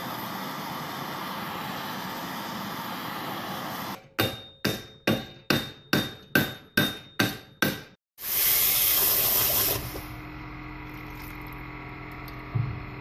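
A handheld gas torch hisses steadily as it heats a steel bracket in a vise. About four seconds in comes a run of about ten ringing hammer blows on the hot metal, roughly two and a half a second, bending the bracket up. A loud sizzle follows as the hot steel is quenched in a pan of water, settling to a fainter hiss.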